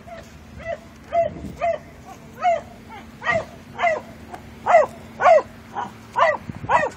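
A dog shut inside a parked car in the heat, giving a dozen or so short, high yelps, about two a second, getting louder after the first few seconds.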